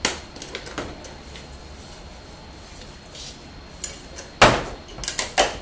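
Stainless steel canister and its metal lid being handled and opened. There is a click at the start and a few small taps, then a sharp metal clank about four and a half seconds in and a quick run of clatters near the end.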